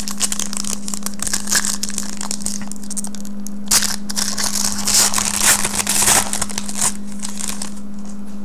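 Trading card pack wrapper being torn open and crinkled, in two spells of crackling, over a steady low hum.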